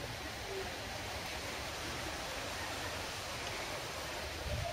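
Steady outdoor background noise: an even hiss with an uneven low rumble beneath it and no distinct event.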